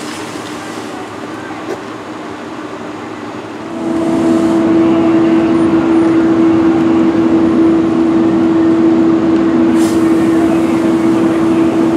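Steady background noise, then about four seconds in a loud, steady engine drone with a constant hum sets in abruptly and holds unchanged.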